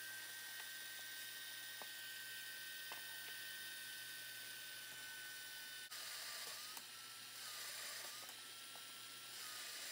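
Bench drill press running with a steady whine. About six seconds in, the bit bores into a wooden block: the motor's pitch drops and wavers under load, and a cutting hiss joins it. A few light ticks come earlier.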